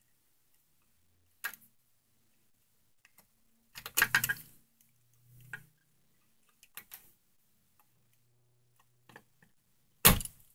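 Scattered clicks and short scrapes of a screwdriver working the terminal screws on a wall light switch, with a brief cluster of them about four seconds in and a louder click near the end.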